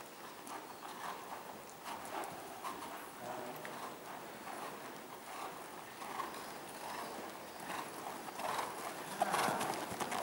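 A horse's hooves trotting on the soft sand footing of an indoor riding arena, a steady muffled beat that gets louder near the end as the horse passes close.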